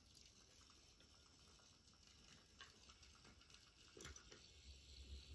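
Faint running of a motorised Mattel Thomas toy engine on a wooden train track: a low hum with light, closely spaced ticking and one sharper click about four seconds in.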